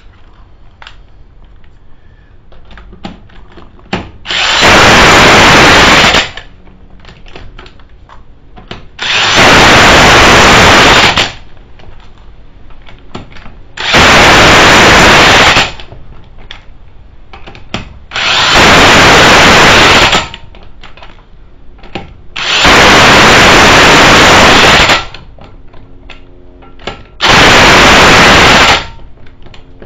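Corded electric impact wrench hammering lug nuts onto a wheel in six bursts of about two seconds each, each stopping abruptly, with light clicks between the bursts.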